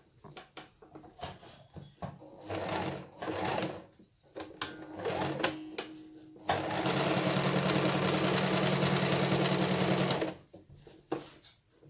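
Electronic domestic sewing machine stitching a seam through cotton cushion-cover fabric: short starts and stops at first, then a steady run of fast, even stitching for about three and a half seconds that stops suddenly.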